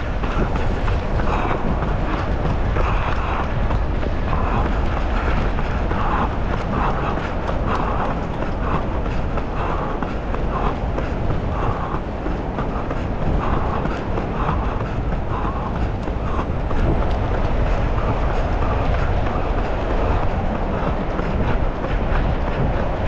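Strong wind buffeting a runner's camera microphone as a steady, loud rumble, with a faint regular pulse about once a second.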